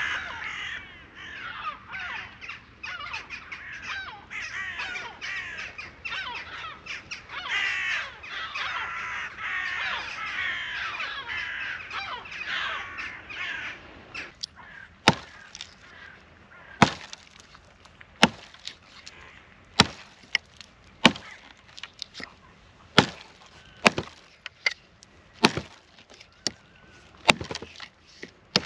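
A flock of gulls calling over and over, many overlapping calls. About halfway through the calls give way to a hatchet chopping a dry driftwood branch: about a dozen sharp strokes, roughly one a second.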